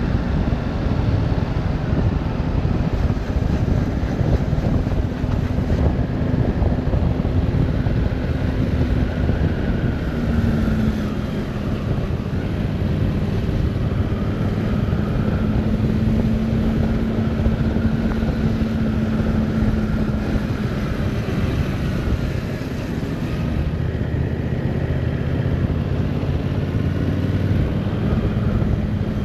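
Yamaha Tracer 7 motorcycle's parallel-twin engine running under way, its note shifting a little in pitch a few times, under a steady rush of wind noise on the microphone.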